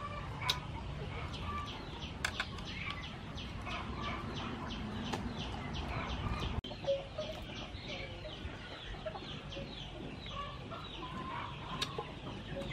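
Chickens clucking with small birds giving a rapid run of high chirps, about four a second, plus a few sharp clinks of a metal spoon on a plate.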